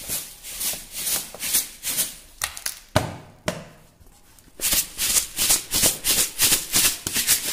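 A plastic jar of granulated sugar and peeled amla (Indian gooseberry) segments being shaken by hand, the sugar swishing and rattling in rhythmic strokes, to mix the sugar through the fruit for amla candy. There is one sharp knock about three seconds in and a short pause, then quicker shaking of about four strokes a second.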